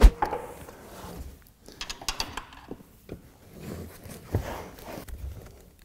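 Carpeted boot floor panels and plastic trim fasteners in an Opel Insignia A being handled and unlatched: scattered clicks, rustling and light knocks, with a sharp click at the start and a firmer knock about four seconds in.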